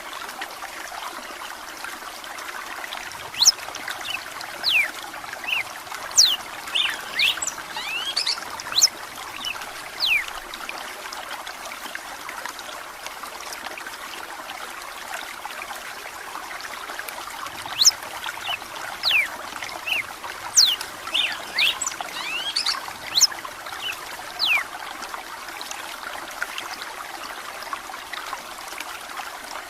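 Red-cowled cardinal (galo de campina) singing two bouts of quick, sharp whistled notes, one starting about three seconds in and another about halfway through. Underneath runs a steady trickle of flowing water.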